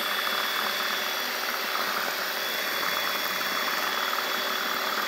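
Electric hand mixer running steadily, its beaters whisking cake batter in a bowl.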